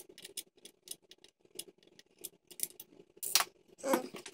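Small sharp clicks and ticks of metal tweezers working on a small plastic switch in the surge protector. There are two louder, longer scrapes about three and four seconds in.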